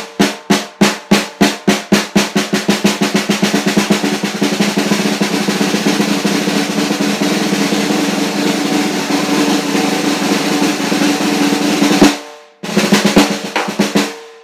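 Snare drum played with wooden drumsticks in double strokes: separate strokes speed up into a steady unbroken roll that stops suddenly about twelve seconds in, then a short burst of strokes near the end.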